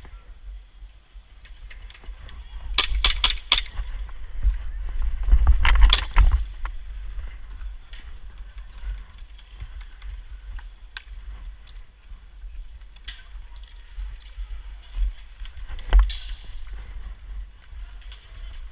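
A quick run of four sharp airsoft gun shots about three seconds in, over rumbling wind and movement noise on the microphone. A louder rustling burst comes around six seconds, and a single further sharp crack near the end.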